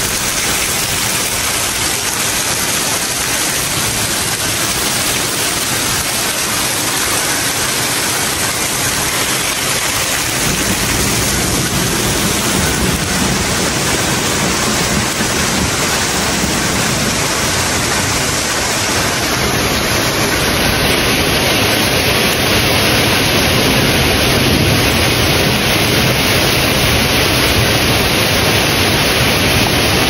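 Heavy rain pouring down steadily on a lawn and gravel driveway as a dense, even hiss. A deeper rumble joins about a third of the way in, and the downpour grows a little louder about two-thirds through.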